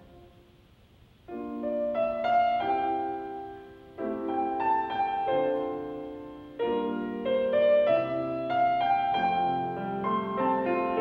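Background piano music: after a brief quiet moment, slow piano phrases begin about a second in, with fresh chords struck twice more and left ringing.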